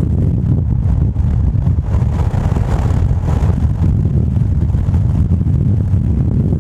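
A car driving, its steady low rumble of road and wind noise filling the sound.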